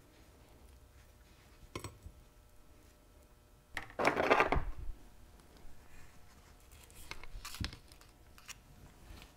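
Small steel parts of a Hurst shifter being handled and fitted onto the shifter stack on a padded bench, giving a few light metal clicks. About four seconds in there is a louder, rough handling sound lasting about a second.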